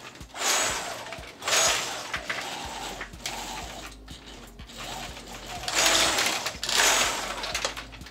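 openDog quadruped robot's leg actuators whirring in short bursts as the legs lift off the ground in diagonal pairs and the motors shift the body to keep it balanced. There are two bursts in the first two seconds and two louder ones near the end, over a faint low hum.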